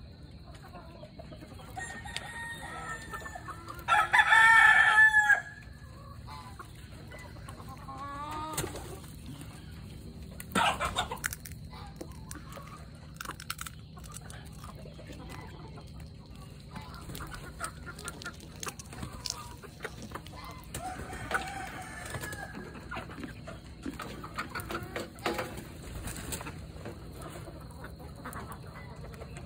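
Chickens clucking now and then, with one loud rooster crow about four seconds in and a brief loud sound about eleven seconds in.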